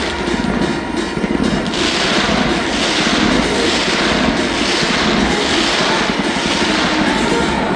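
A dense barrage of fireworks: rapid, overlapping bursts and crackling without a pause.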